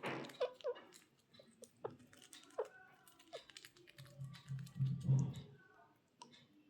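Indian ringneck parrot clicking and nibbling with its beak, scattered sharp ticks mixed with a few short, faint chirps.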